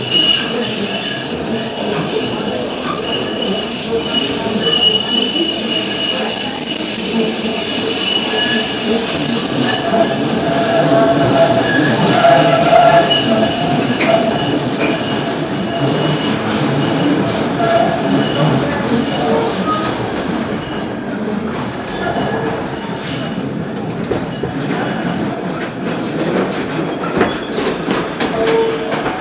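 PATH PA5 subway car running at speed, heard from inside the car: a steady rumble of wheels on rail, with high shrill wheel squeal that comes and goes. About two-thirds of the way through, the rumble drops and the squeal mostly dies away.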